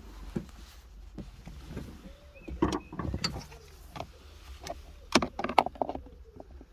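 Irregular plastic clicks and knocks from a screwdriver prying at the locking clip of a wiring connector on a car's centre-console switch panel. The clicks come in a cluster a few seconds in and again, louder, about five seconds in.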